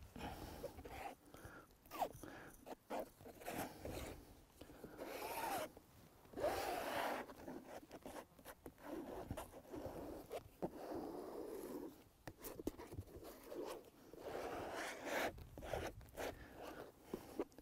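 A gel-and-paint mixture being spread across a canvas by hand in an irregular series of short scraping, smearing strokes, some lasting about a second.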